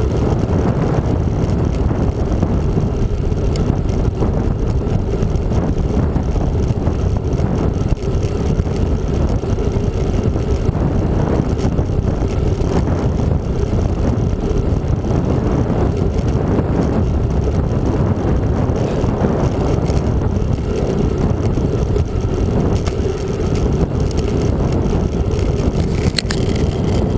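Steady wind noise on the microphone of a camera riding on a moving bicycle, mixed with tyre rumble on the asphalt.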